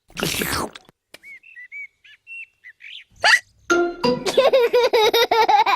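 Cartoon sound effects: a short noisy gulp at the start, then birds twittering in short high chirps, then from about four seconds in cartoon pigs starting to laugh in rapid pulses.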